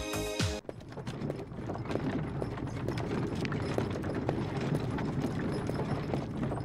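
A wooden-wheeled handcart pulled by hand, rumbling and clattering over cobblestones, with many small knocks and footsteps. Music cuts off about half a second in.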